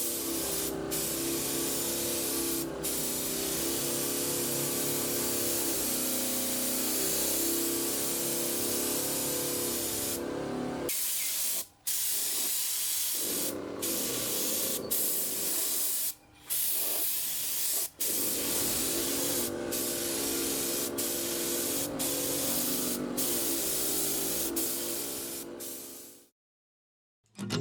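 Aerosol spray can hissing steadily, in stretches broken by sudden short cuts, with faint background music underneath. It fades out near the end.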